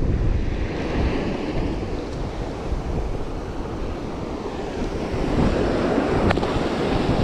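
Surf washing up on a sandy beach, with wind buffeting the microphone in a low rumble. There is a single brief tick about six seconds in.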